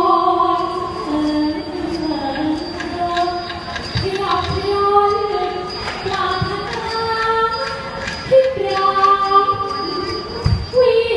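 A Thai likay performer sings a slow melodic line of long, bending notes into a microphone over the stage sound system. Light ticks keep a steady beat about twice a second.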